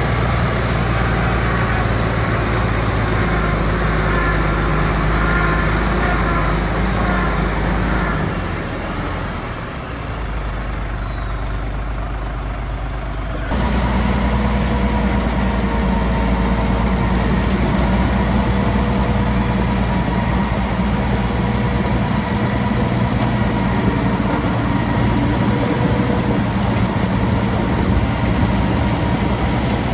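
Heavy diesel construction machinery running steadily under load. The engine sound drops away somewhat about a third of the way through, then comes back abruptly at full level.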